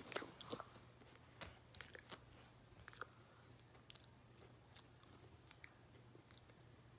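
Someone chewing food, with a few faint, sharp crunches scattered through, over a low steady hum.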